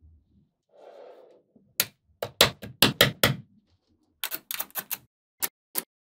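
Small magnetic balls snapping together in sharp clicks. The clicks come in a quick cluster of about seven from around two seconds in, then another cluster and two single clicks near the end. A short soft rustle comes about a second in.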